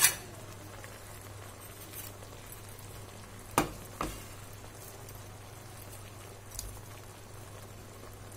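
Thickened sweet and sour sauce simmering in a pot, a soft steady bubbling. A sharp knock comes right at the start, and two lighter knocks a little past the middle.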